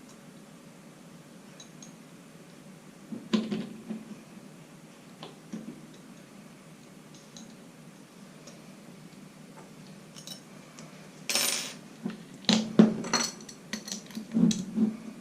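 Small steel parts and a tool being handled on a bench: scattered light metallic clicks, a short scraping rasp about eleven seconds in, then a quick run of clinks and clatter near the end.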